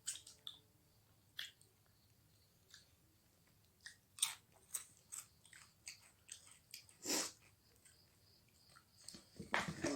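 A person chewing and biting food: a string of short, irregular mouth clicks and crunches, with a longer one about seven seconds in and a close cluster near the end.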